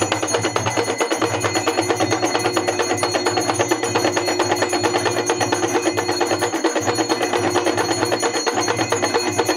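Devotional bhajan music without singing: metal percussion ringing in fast, even strokes over a steady held drone.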